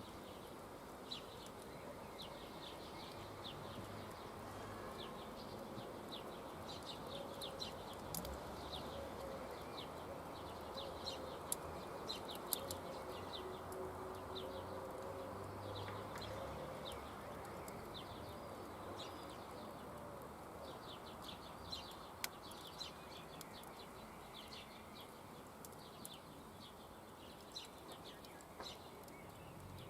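Faint outdoor ambience: rapid high chirping in short clusters throughout, with a few sharp clicks.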